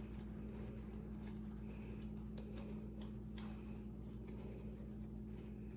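Faint, light wiping strokes, a few of them, as the small sealing plate for a Trijicon RMR red-dot sight is cleaned by hand, over a steady low electrical hum.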